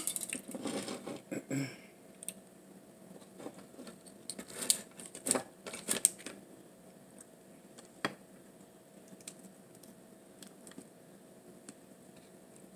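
Scattered sharp clicks and crackles of a lobster's shell being picked apart by hand to get the meat out. A flurry at the start, a few loud cracks around five to six seconds in and one near eight seconds, then only faint ticks.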